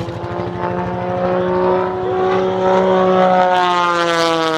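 Propeller engine of an aerobatic stunt plane running hard through a manoeuvre, its pitch climbing gently and then dropping near the end as the plane passes, with a rush of wind noise.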